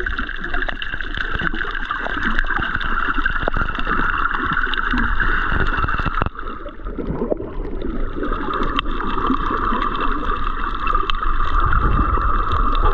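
Underwater sound heard through a submerged camera: a steady, muffled rush of moving water with a constant crackle of small clicks. It dips briefly about halfway through.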